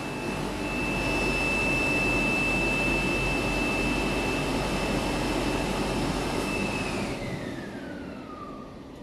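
A machine running at high speed with a loud steady noise and a strong high whine. About seven seconds in, the whine glides steadily lower as the machine spins down.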